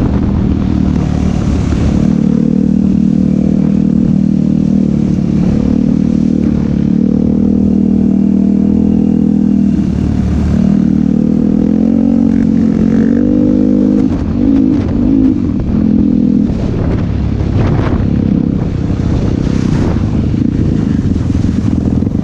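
ATV engine running hard, its pitch holding and then rising and falling as the throttle is worked, with brief drops in revs. Several short knocks and rattles come through near the end.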